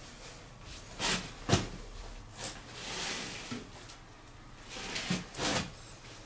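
A few scattered knocks, clicks and rustles of someone moving about and handling things, the sharpest knock about one and a half seconds in and another cluster near the end.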